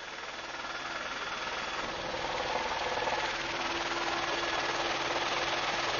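Helicopter engine and rotor noise: a steady mechanical drone that slowly grows louder.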